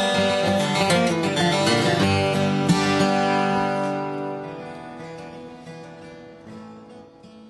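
Acoustic guitar music, picked and strummed, whose last chord rings out and fades away over the second half.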